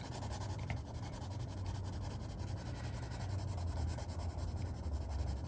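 Mondo Llama colored pencil scratching steadily as it shades on coloring book paper.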